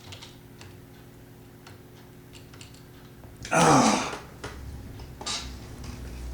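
A few scattered computer keyboard key clicks, then about three and a half seconds in a loud sighing exhale with a falling groan, and a shorter breath a second or so later.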